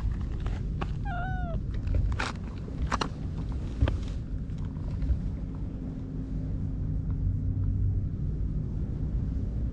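Cat purring steadily as its head is stroked. A couple of short chirps come about a second in, and a few light knocks come between two and four seconds in.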